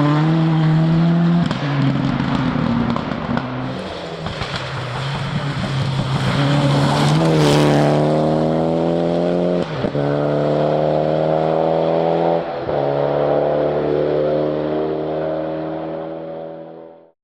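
Rally car engine at full throttle, its pitch climbing through the gears with short dips at each upshift, then fading away at the end.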